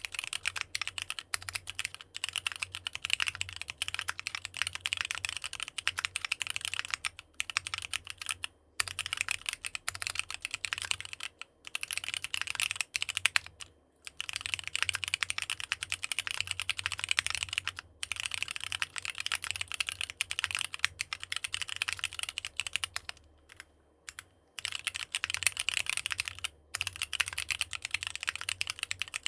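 Fast typing on a NEO65 65% mechanical keyboard with AKKO Sponge tactile switches: rapid, continuous key clacks in runs of several seconds, broken by a few brief pauses.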